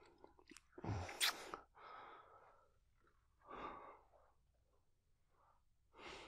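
A man's breaths close to the microphone: a heavy exhale, like a sigh, about a second in with a sharp click inside it, then softer breaths.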